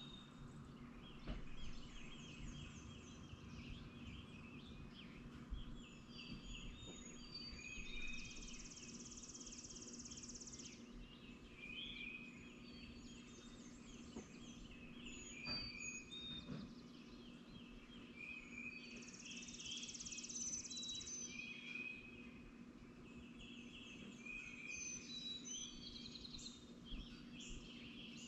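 Morning chorus of several wild songbirds, with short repeated chirps and song phrases overlapping throughout, and two longer high buzzy trills, one about eight seconds in and another about nineteen seconds in. A faint steady low hum lies underneath.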